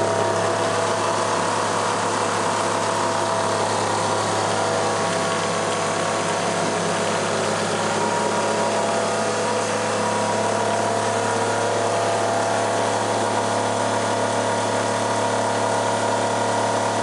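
Electric drive motor spinning a car alternator on a bench rig, running steadily: a constant hum with several steady whining tones and a mechanical rattle.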